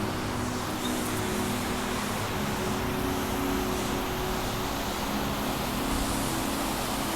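Steady rushing of falling water from a waterfall feature, an even, unbroken roar.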